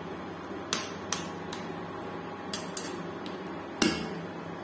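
A spoon stirring chicken in broth in a pan, clinking sharply against the pan's side half a dozen times, the loudest knock near the end.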